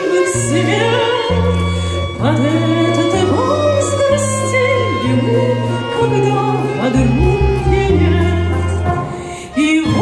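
Woman singing into a microphone over instrumental accompaniment with a steady bass line; the music dips briefly about nine and a half seconds in.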